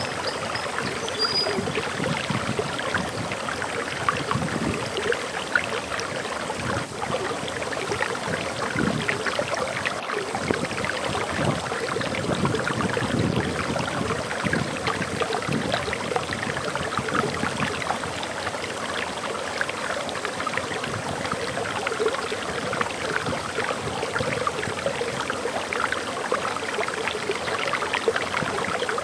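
Water rushing and splashing steadily over a small waterfall, a dense babbling with no break. A single short, high bird chirp sounds faintly about a second in.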